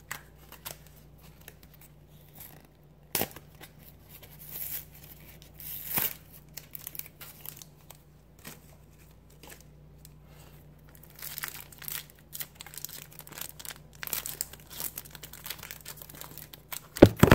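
Foil Pokémon booster pack wrapper being crinkled and torn open by hand, with scattered crackles and rustles. Near the end comes a loud clatter as the camera falls off its stand.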